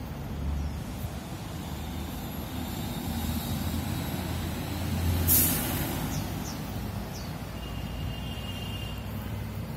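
Steady low rumble of city street traffic with a bus passing. About halfway through comes one short, loud hiss of released air brakes.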